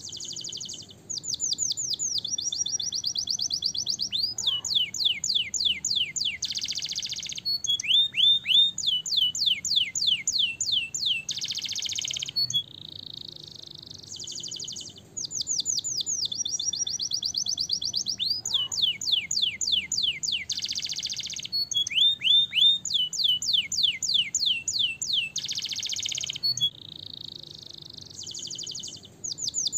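Domestic canary singing a long rolling song: fast, high trills of repeated down-sweeping notes alternating with buzzy rolls. The same run of phrases comes round again about every 13 seconds.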